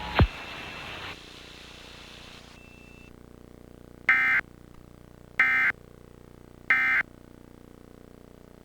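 Emergency Alert System end-of-message signal: three short bursts of digital data screech, about 1.3 s apart, closing the alert. It is preceded at the very start by a brief, loud downward sweep.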